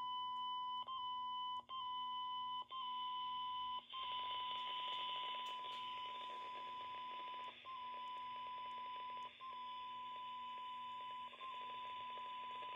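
A 1 kHz test tone is played through the Belfone BF-TD910UV radio's speaker, demodulated from an FM signal generator. It breaks off for an instant each time the signal level is stepped down, about once a second at first and then every couple of seconds. From about four seconds in, a hiss grows under the tone as the received signal weakens toward the receiver's 12 dB SINAD sensitivity point.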